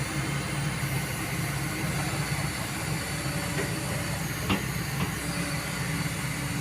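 Kobelco excavator's diesel engine running steadily, with hiss over the engine note and a single sharp knock about four and a half seconds in.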